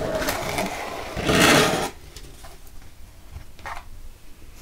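A cardboard mailer box being opened: the lid's tab is pulled from its slot and the cardboard scrapes and rubs, loudest about a second and a half in. After that come faint rustles.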